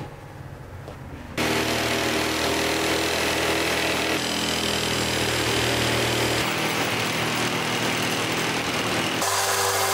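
A corded jigsaw starts about a second and a half in and cuts steadily through a thick wooden block along a curved outline, its motor humming under the blade's rasp. A single knock sounds at the very start as the saw is picked up.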